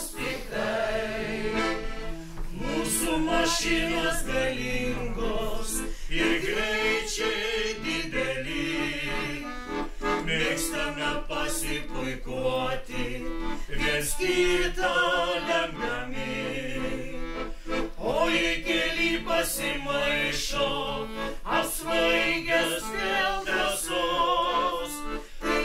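Small folk ensemble of men and women singing a song together in Lithuanian, reading the words from song sheets.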